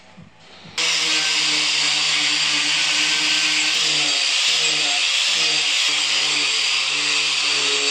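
Angle grinder with a carving disc grinding into a walnut blank, coming in abruptly about a second in and then running loud and steady.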